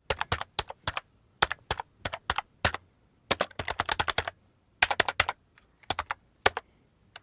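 Keyboard typing clicks, irregular and in short runs of a few keystrokes, with dead silence between them.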